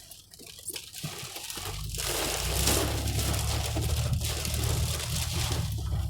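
Heavy storm rain pelting a car, heard from inside. A low rumble and a loud hiss swell in about two seconds in and stay steady.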